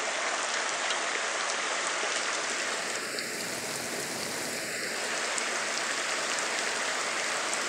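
Rain falling steadily and unbroken: a constant hiss with the odd faint drop tick.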